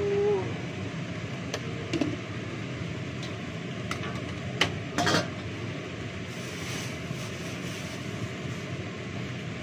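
Kitchen handling at a sink: a few short clicks and knocks of dishes and utensils being moved, the loudest pair about halfway through, over a steady background hum.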